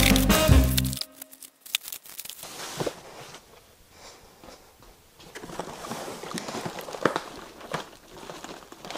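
Background music cuts off about a second in. After it, paper-wrapped meat packages and cardboard boxes are being handled, with rustling, footsteps and a few light knocks.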